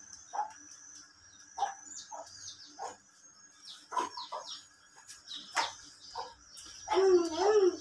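Domestic chicken clucking in short calls about once a second, with small birds chirping high above. Near the end comes a louder wavering call, rising and falling in pitch.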